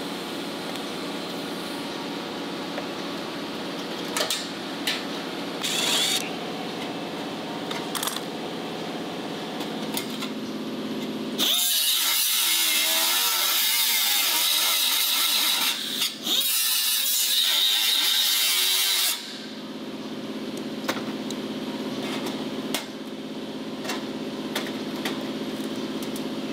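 A small cutoff wheel cutting into the metal of a 1936 La Salle grille, a loud high-pitched whine lasting about eight seconds from near the middle, briefly dropping out once partway through. Before and after it, a steady low hum with a few light clicks.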